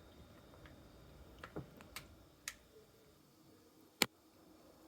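A few faint clicks and taps from a bowl and plastic zip-lock bag being handled as marinated chicken wings are tipped into the bag, with one sharper click about four seconds in.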